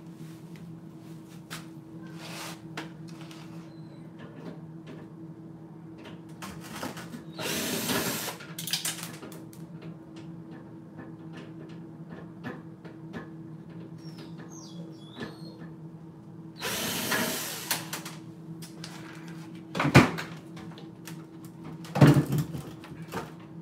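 Cordless drill running in two short bursts of about a second each, roughly a third of the way in and again about two-thirds in, with scattered small clicks and two sharp knocks near the end as microwave parts are handled.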